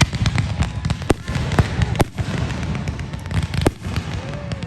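Fireworks going off in a continuous barrage of rapid crackles and pops over a heavy low boom, with a few louder bangs standing out, about a second in, at two seconds and near the end.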